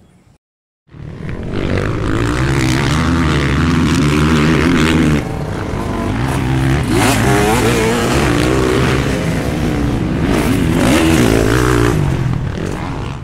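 Motorcycle engines running and revving, rising and falling in pitch, starting suddenly about a second in, with an abrupt change about five seconds in.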